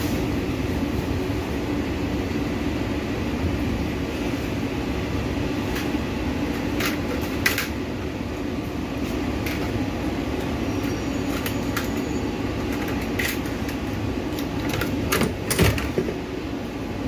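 Heavy rain and strong wind making a steady, rumbling noise, with a few sharp taps and clicks in the second half.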